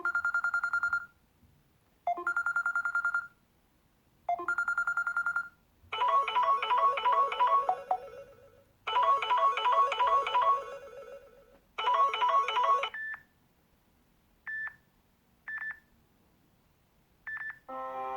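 Samsung Galaxy J5 built-in ringtones previewed one after another through the phone's speaker. First comes a buzzy electronic trill at one pitch, rung three times. Then a short multi-note melodic ringtone plays, restarts and is cut off partway, followed by a few brief single beeps.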